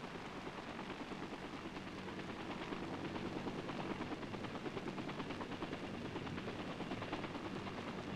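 Tandem-rotor H-21 helicopter in flight, with a fast, even rotor chop over a steady engine drone. It grows slightly louder after about two seconds.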